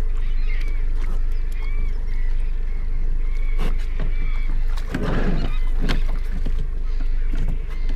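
A small boat's engine running steadily with a low hum, while seabirds call repeatedly in short, rising-and-falling cries. A brief rush of noise about five seconds in.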